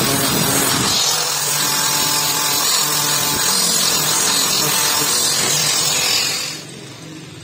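A power tool running steadily under load in a workshop, cutting or shaping material. It winds down about six and a half seconds in.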